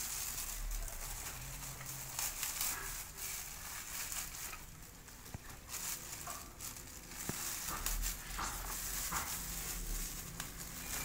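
Black plastic wrapping crinkling and rustling irregularly as hands pull it away from a plant's root ball.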